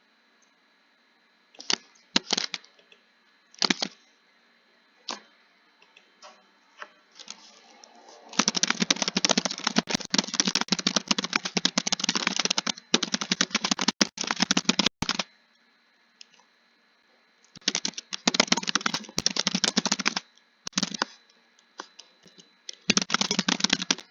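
Typing on a computer keyboard: bursts of rapid keystrokes with short pauses and a few single key presses between them, the longest run in the middle.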